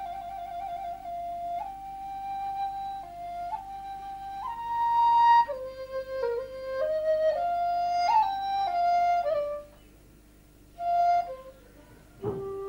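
Background music: a solo flute melody of held notes stepping up and down, the first note wavering with vibrato, with a short pause about ten seconds in.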